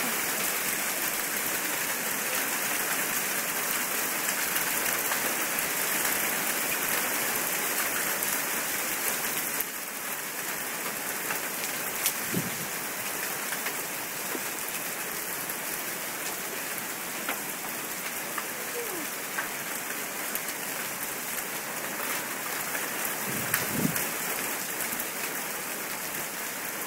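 Small hail falling steadily: an even hiss of many hailstones striking the ground. It eases slightly about ten seconds in, with a couple of brief louder knocks later on.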